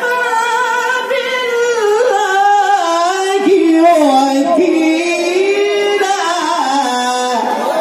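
Male qari reciting the Quran in melodic tilawah style into a microphone, holding long ornamented notes that slide and waver in pitch, falling to a lower note near the end.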